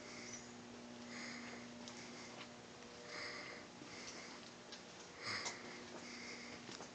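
A person breathing close to the microphone, soft nasal puffs of breath about once a second, over a steady low hum.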